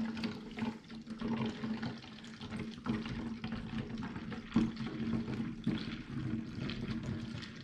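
Diluted snow-foam solution pouring from a glass measuring jug through a plastic funnel into a plastic foam-lance bottle, a steady trickle of liquid that foams up in the funnel.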